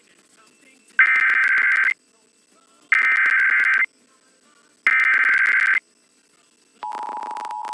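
Emergency Alert System SAME header: three bursts of screeching digital data tones, each about a second long with about a second between them. About a second before the end, the EAS attention signal starts, a steady two-tone alert tone.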